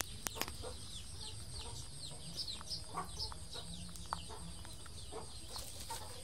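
Chickens clucking, with many short, high, falling chirps throughout and a few sharp clicks close by.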